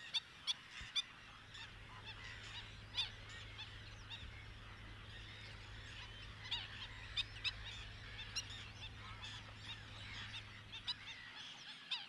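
A flock of waterbirds calling, many short calls overlapping in a busy, fairly faint chatter.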